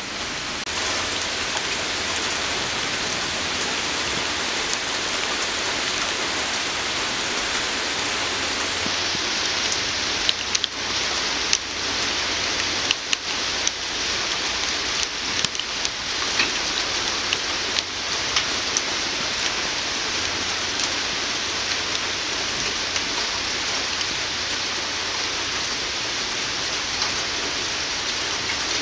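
Steady rain falling in an even hiss, with sharp ticks of single drops landing close by, most of them through the middle stretch.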